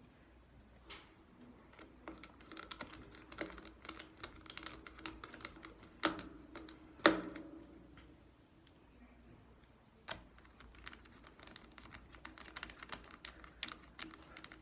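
Small clicks and ticks of a screwdriver working the small screws that fasten a replacement battery into a Chromebook, with plastic and metal parts tapping. There are two sharper knocks about six and seven seconds in.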